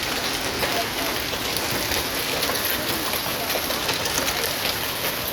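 Heavy rain mixed with hail, a steady downpour with many sharp ticks and clacks of hailstones striking hard surfaces.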